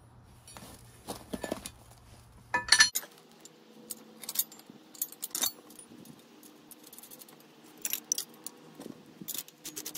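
Metal-on-metal clinks and taps from steel hardware being handled: a bolt, lock washer and nut being fitted through a steel frame angle and tie strap. The clinks come scattered and irregular, the loudest cluster a little under 3 s in.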